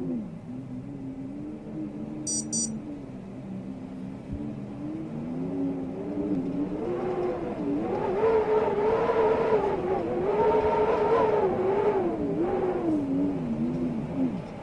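Storm wind howling with a wavering pitched tone that climbs and grows louder from about halfway in, then sinks again near the end. Two very brief high chirps come early.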